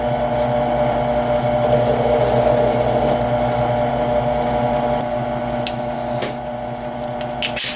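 Drill motor running steadily while a counterbore cuts into an aluminum scooter headset clamp, widening the clearance hole for a larger screw, with a light rubbing, grinding cut. It eases off a little after about six seconds, and a few sharp clicks come near the end.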